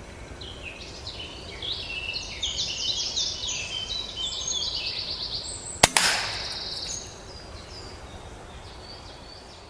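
A small songbird sings a quick run of falling chirps for several seconds. Then a PCP air rifle fires, a single sharp crack followed a split second later by a second knock, likely the pellet striking, with about a second of noise trailing after.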